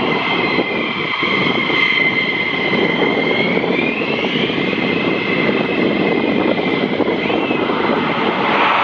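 F-15 fighter jet's twin turbofan engines running loud: a steady rushing noise with high whining tones above it, some of which slide in pitch partway through.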